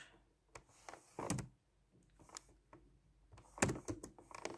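Faint handling noises at a table: a scattered few clicks and soft knocks, the loudest about three and a half seconds in.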